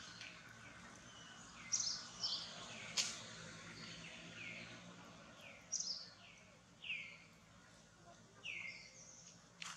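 Birds chirping: a dozen or so short, high calls that each sweep downward, coming at irregular intervals. A sharp click sounds about three seconds in.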